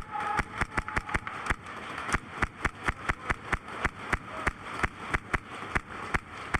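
Airsoft guns firing a rapid stream of sharp shots, about five a second.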